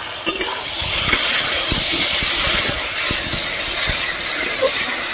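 A metal spatula scrapes and stirs Malabar spinach seed clusters coated in mustard-poppy paste around a metal wok, with oil sizzling that swells about a second in. This is the sauté stage, with the spices frying in the oil until the oil separates.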